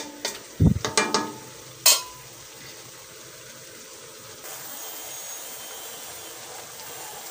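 A wooden spatula knocking and scraping against a metal wok as crab, shrimp and camansi are stirred, a few sharp knocks in the first two seconds. Then a steady sizzle as the food cooks in the pan.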